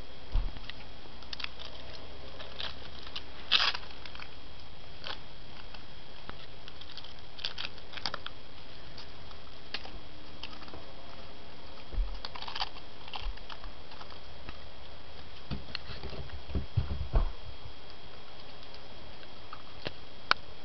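Puppy moving about and playing: scattered light clicks and taps, with a few soft low thumps about 12 seconds in and again around 16 to 17 seconds, over a steady faint hiss and a thin high whine.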